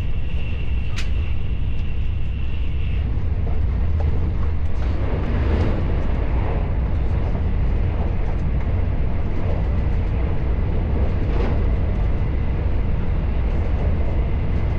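Train running, heard from inside the carriage: a steady low rumble with a thin high whine for the first few seconds and a few scattered clicks.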